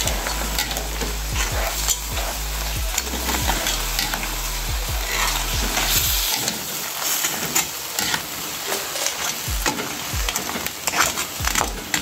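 Crab halves frying in a wok with black beans and soy sauce, sizzling steadily while a spatula stirs and turns them, scraping and clicking against the pan many times.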